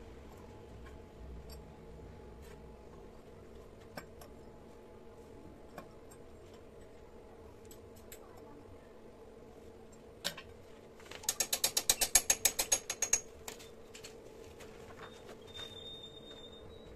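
A small mechanism clicking: a few single clicks, then a fast run of clicks, about ten a second for two seconds, over a faint steady hum. A short high tone sounds near the end.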